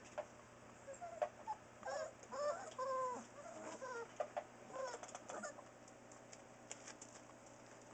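Four-week-old Newfoundland puppies whining and squeaking: short high cries that bend up and down, several overlapping, from about one second in to about five and a half seconds, with a few light ticks scattered around them.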